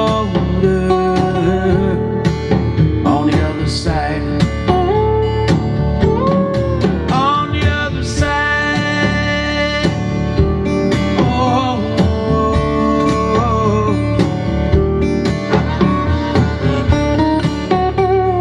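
Music with guitar and singing, played back through a Pioneer SX-780 stereo receiver for a sound test.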